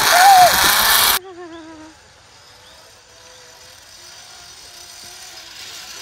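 Zip-line trolley pulleys running along a steel cable: a loud rushing whir close up, with a short shout, that cuts off suddenly about a second in. Then a much fainter wavering whir from the trolley heard from farther off.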